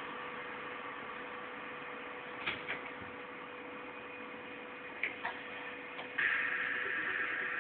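Steady hiss with a faint steady hum, broken by a few soft clicks, and a louder hiss from about six seconds in.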